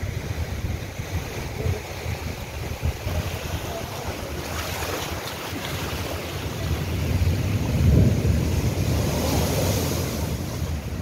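Rough, storm-driven sea: waves crash against a boulder seawall and surge across flooded ground, with wind buffeting the microphone. The surf swells loudest about eight seconds in.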